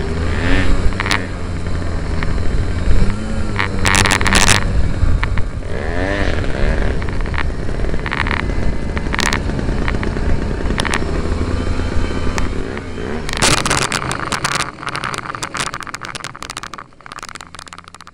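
Onboard-camera sound from an electric Flyzone Cessna 182 RC model as it lands and rolls out: steady wind rush and a low hum, with scattered knocks and rattles. A burst of rapid rattling comes in the last few seconds as it rolls over gravel, then the sound fades out.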